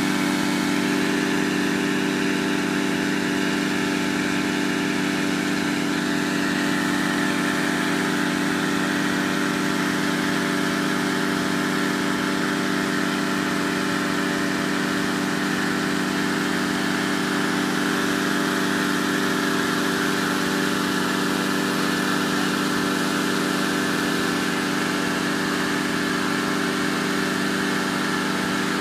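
Engine-driven inflator fan running steadily at a constant speed, blowing cold air into a hot air balloon envelope during cold inflation.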